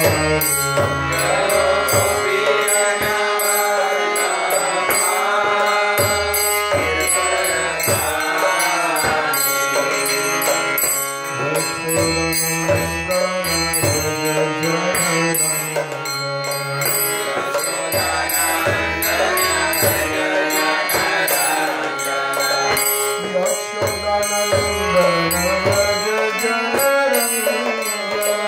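Devotional chanting (kirtan): a man singing a mantra to steady harmonium chords, with a drum keeping a repeating beat.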